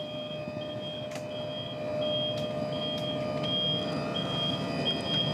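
Powered tender garage hatch on a Galeon 510 Sky yacht opening. A steady motor hum with a constant whine runs under a repeated high warning beep, about one beep every 0.8 seconds, and the hum grows a little louder about two seconds in.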